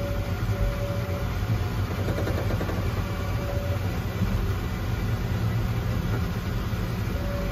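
Miniature ride-on electric train rolling slowly along its track, heard from inside its small cab as a steady low rumble. Short faint tones come and go over it.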